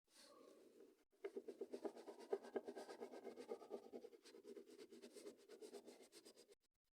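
Faint, quick back-and-forth scribbling of a drawing tool on paper, colouring in a paper squishy, about eight to ten strokes a second, cutting off abruptly near the end.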